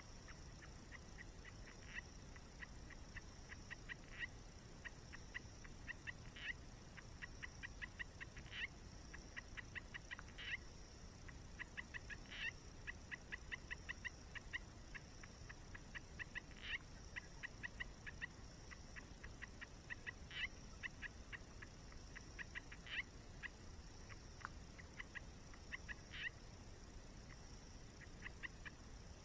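A bird calling in fast rattling trains of short, evenly spaced notes, with a louder note standing out about every two seconds, over a steady high-pitched hum and a low rushing noise.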